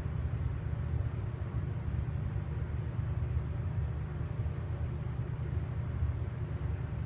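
Steady low mechanical hum with a few fixed low tones, unchanging throughout, with no distinct calls or knocks standing out.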